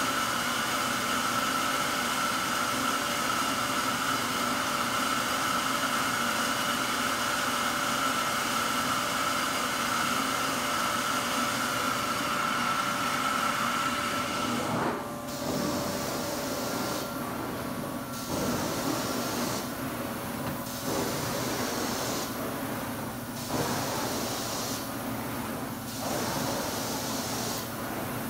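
Hot-water extraction carpet cleaner's vacuum pulling air through the hose and wand: a steady hiss with a whistle. About halfway in, the wand starts passing over the carpet and the sound dips and comes back every two to three seconds, once per stroke.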